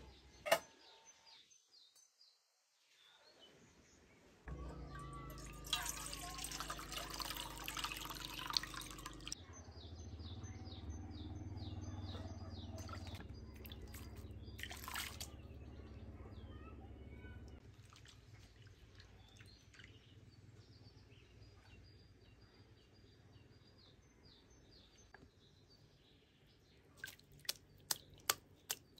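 Churned buttermilk poured from a clay churn into a metal pot, a strong splashing pour starting about four seconds in and lasting about five seconds. It is followed by quieter sloshing and dripping as a hand works in the buttermilk gathering the butter, and a run of sharp ticks near the end.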